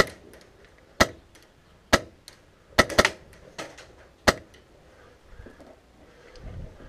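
Airsoft rifle with a PolarStar Jack HPA engine firing single shots: about six sharp cracks over four and a half seconds, unevenly spaced, two close together about three seconds in.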